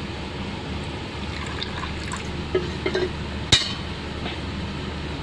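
Water poured from a steel container into a small steel bowl of leftover printer ink, rinsing it out, with a few small clinks and drips. A single sharp clink about three and a half seconds in.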